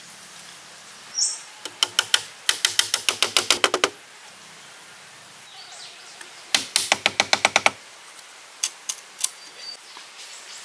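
Light wooden knocks coming in quick runs as small wooden railings are tapped into place: two runs of about eight knocks a second, then a few single knocks near the end.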